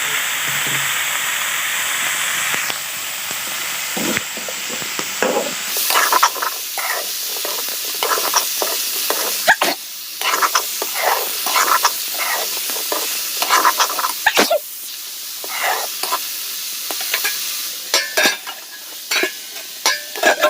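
Food sizzling as it fries in a pan, at first a steady hiss, then stirred: from about six seconds in, repeated short scrapes of a spatula against the pan over the sizzle.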